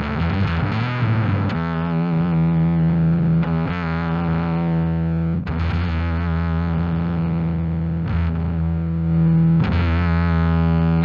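Bass played through a Fender Blender fuzz pedal: a handful of long, heavily distorted sustained notes, the pitch changing every couple of seconds.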